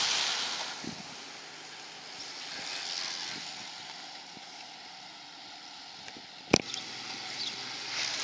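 Rushing tyre-and-air noise of road-racing bicycles passing close. It fades after the first riders go by and swells again near the end as the next group comes past. One sharp click comes late on.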